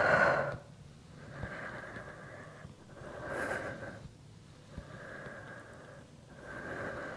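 A woman breathing hard through an exercise set, with a strong exhale at the start and then a run of audible breaths in and out, each about a second long, in a steady rhythm.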